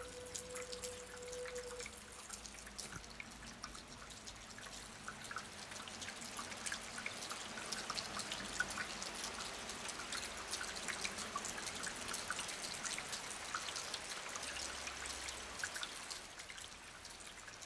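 Heavy rain falling, with drops spattering close by as water drips off a roof's eaves: a steady hiss full of quick ticks, growing a little denser and louder about six seconds in. A steady faint tone sounds over it for the first two seconds.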